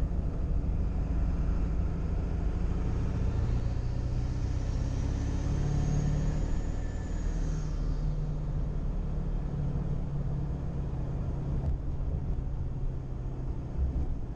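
Ford 7.3 Powerstroke turbo-diesel V8 pulling under hard acceleration, a deep steady rumble with the engine note climbing. A high turbo whistle rises over a few seconds and falls away about eight seconds in.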